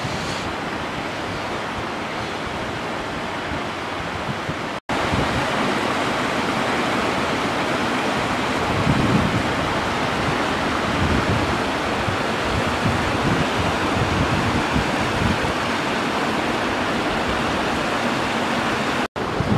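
A shallow, rocky mountain river rushing steadily over stones, louder after a break about five seconds in. Low gusts of wind hit the microphone in the second half.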